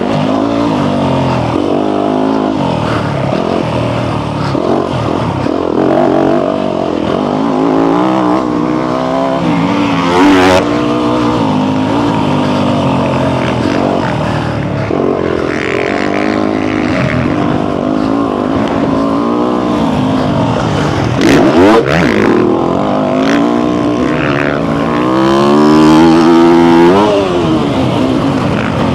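Motocross dirt bike engine heard from the bike itself while riding the track, revving up and down with the throttle and gear changes; the loudest climb in revs comes near the end.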